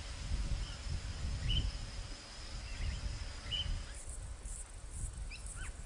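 Faint outdoor ambience: a steady high insect-like drone that stops about four seconds in, a few short soft bird chirps, and a low rumble underneath.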